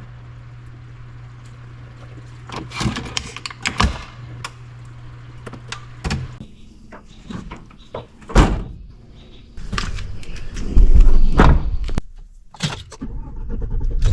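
Car sounds: a steady low engine hum for the first half, broken by several sharp thunks and knocks like doors and handling, then a loud low rumbling stretch near the end.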